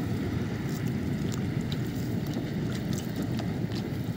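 Train running past, a steady low rumble.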